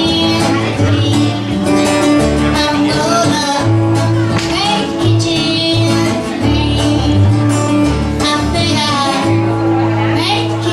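Live Americana song: a woman singing over acoustic guitar, with a steady bass line.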